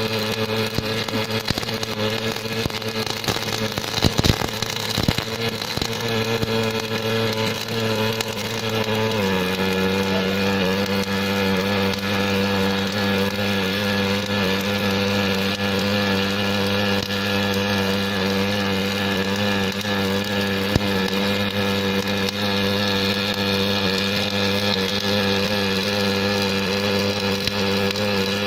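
Automatic hydraulic-cylinder welding machine running: a steady machine hum with a few knocks about four seconds in. Its pitch shifts slightly lower about nine seconds in, and it runs evenly after that.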